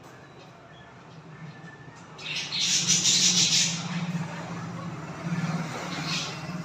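Wild dove feeding its chick: a breathy hissing rush starts about two seconds in and lasts about a second and a half, over a low pulsing drone that carries on to the end.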